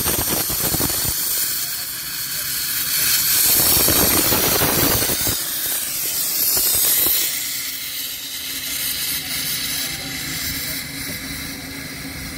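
Small steam locomotive venting steam low at the front, a loud hiss typical of open cylinder drain cocks. The hiss drops back about seven seconds in and carries on more quietly.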